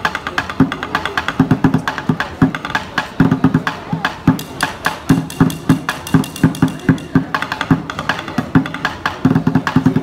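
Drumming with two sticks on an upturned plastic yogurt bucket: a fast, unbroken rhythm of low thumps on the bucket mixed with sharp stick clicks.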